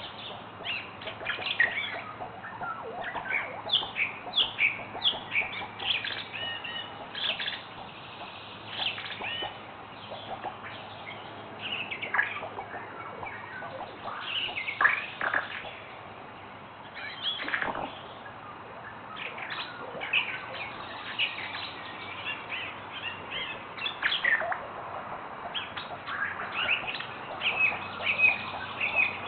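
Wild birds calling in irregular runs of short chirps, with a few longer downward-sliding calls scattered through.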